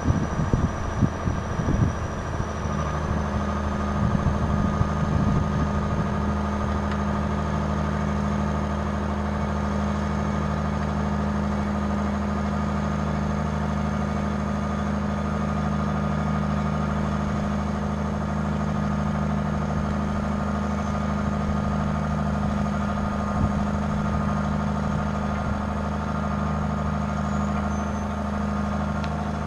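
John Deere 690B excavator's six-cylinder diesel engine idling steadily. A few irregular low bumps come over it in the first couple of seconds.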